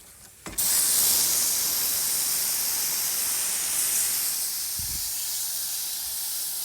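Chapin pump sprayer spraying cleaning solution onto HVAC coil fins: a steady hiss that starts again about half a second in after a brief break.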